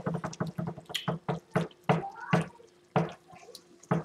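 Thick sloppy joe sauce simmering in a pan, its bubbles plopping and popping irregularly several times a second.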